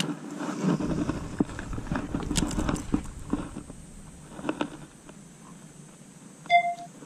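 A frog lure cast with a Shimano Calcutta Conquest 51 baitcasting reel: a rumbling rustle of rod and hand movement with scattered sharp clicks over the first few seconds, then a few quieter clicks. A short pitched note sounds near the end.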